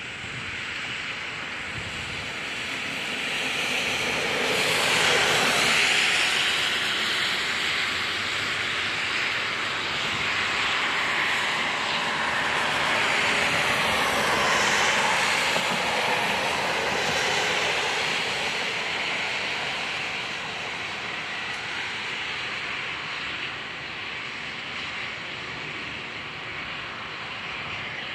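Loud, steady rushing rumble of a passing vehicle. It swells twice in the first half, then slowly fades toward the end.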